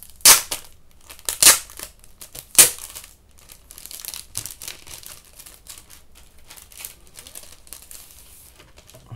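Plastic packaging being torn open by hand: three sharp rips in the first three seconds, then softer, longer crinkling as the wrapping is pulled away.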